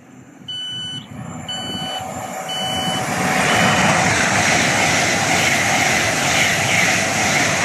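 Thameslink Class 700 electric train at the platform: four short high door-warning beeps about a second apart, the last one fainter. From about three seconds in, the train's running noise rises and stays loud as it moves off.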